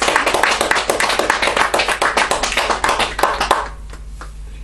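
Small audience applauding after a song, dense clapping that dies away about three and a half seconds in, leaving a couple of stray claps.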